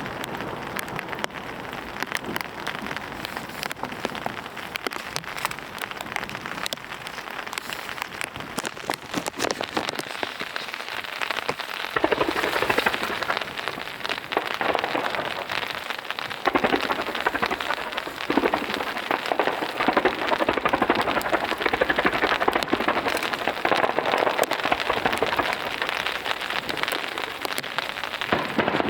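Heavy rain pattering on a surface close to the microphone: a dense, steady crackle of drops that swells heavier several times.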